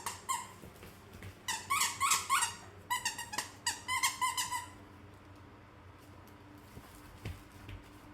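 Dog's squeaky toy squeaked over and over in quick runs as the dog bites down on it, for about the first four and a half seconds. A couple of soft low thumps come near the end.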